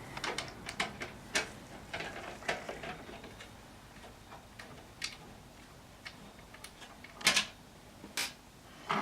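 Scattered small clicks and taps of a screwdriver and loose screws against a desktop computer's metal case as the power-supply screws are taken out, with two louder sharp clacks near the end.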